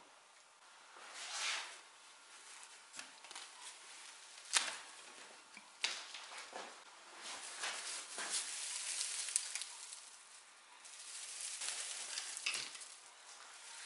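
Old, dry straw-and-hair upholstery stuffing rustling and crackling as it is pulled by hand out of an antique chair seat, swelling and fading several times, with a couple of sharp clicks in the first half.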